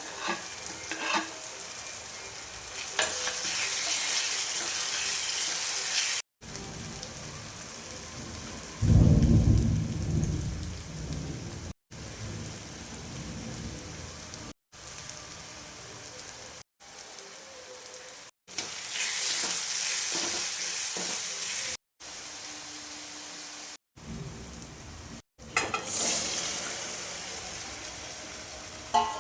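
Food sizzling and frying in hot oil, heard across several short edited clips, with the hiss swelling at intervals. About nine seconds in, a loud low rumble briefly stands out over it.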